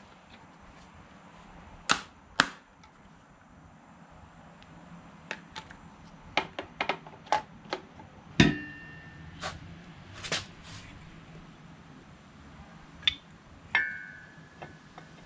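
Scattered sharp metallic clicks and clinks, a dozen or so, as hardware is fitted onto a motorcycle cylinder head. Two of them, a little over halfway and near the end, ring briefly like struck metal.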